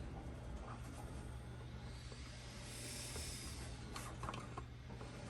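A steady low electrical hum under faint handling noise, with a soft hiss swelling in the middle and a few light clicks about four seconds in, as small 3D-printed plastic parts are handled.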